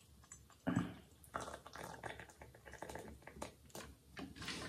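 Just-boiled water pouring from an electric kettle into a mug, splashing as it fills, with a knock less than a second in.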